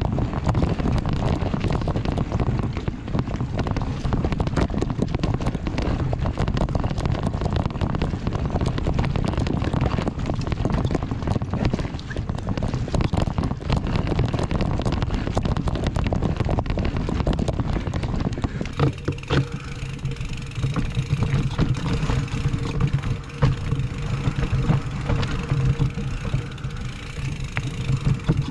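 Mountain bike rolling over a rooty dirt singletrack, heard from a camera riding on the bike or rider: a steady rumble of wind and tyre noise with many small knocks and rattles as the bike goes over roots. About two-thirds of the way in, the sound changes and a steady low hum joins in.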